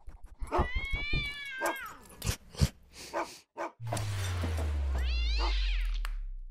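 Animated sound logo built from animal sound effects: a cat's meow about half a second in, a scatter of short clicks and pops, then a second meow near the end over a deep tone that slides slowly down and fades.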